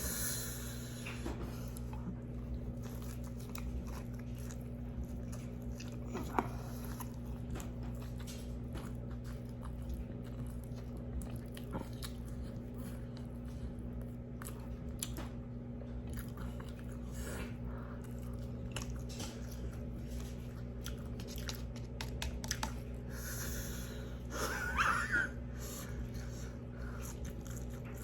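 Close-up chewing and crunching of fried hot chicken, with small wet mouth clicks, over a steady low hum. There is a brief louder noise about 25 seconds in.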